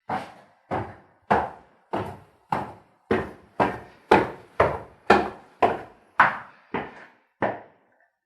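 Footsteps going up or down stairs: about fourteen even, knocking steps at roughly two a second, stopping short of the end.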